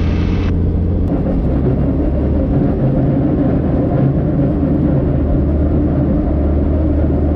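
Robinson R44 Raven helicopter's six-cylinder Lycoming piston engine running steadily just after start-up, while the clutch engages and tightens the drive belts to connect the engine to the rotors. Its low hum shifts slightly in pitch about a second in and again near the end.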